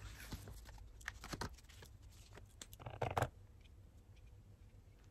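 Paper and card being handled at a desk with a pen: a few soft clicks and rustles, then a louder, brief rustle about three seconds in.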